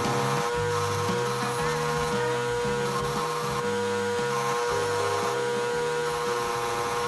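Motor-driven wire wheel running steadily with an even whine, scrubbing rust off steel pliers.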